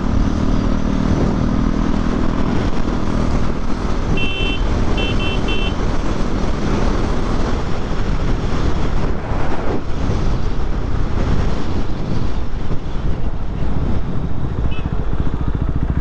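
KTM motorcycle riding at road speed, its engine running under a steady rush of wind noise, easing off toward the end as it slows down. A few short high beeps sound about four to six seconds in.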